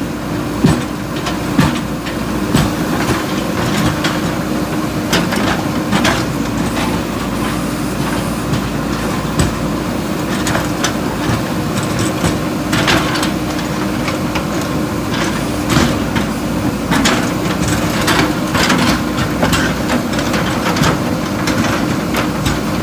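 JCB 3DX backhoe loader's diesel engine running steadily, with irregular clanks and knocks from the bucket working broken concrete and rubble.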